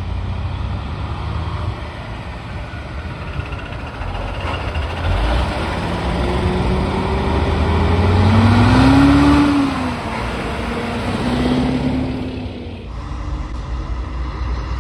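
Heavy diesel trucks driving past one after another, their engines pulling as they accelerate. The engine note climbs and is loudest about nine seconds in as a red truck passes close, then drops and climbs once more before the sound changes sharply near the end.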